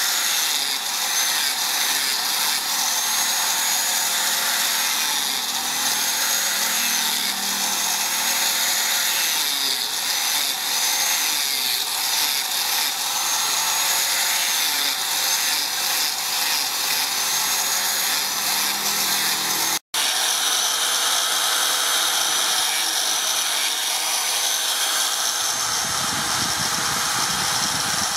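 Electric angle grinder with a sanding disc running continuously while sanding and shaping a wooden slingshot fork; its high whine wavers as the disc bears on the wood. The sound cuts out for a moment about two-thirds of the way through, then the sanding carries on.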